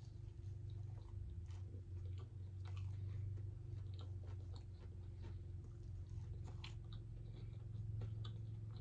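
A person chewing food close to the microphone, with faint irregular crunchy clicks and mouth sounds, over a steady low hum.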